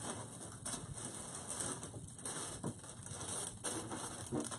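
Faint, irregular rustling and clattering of craft supplies being rummaged through and handled.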